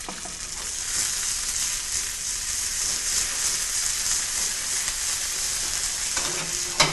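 Potato gnocchi frying in a hot pan with a spoonful of basil pesto just added: a steady sizzle that grows louder about a second in, with a sharp clack near the end.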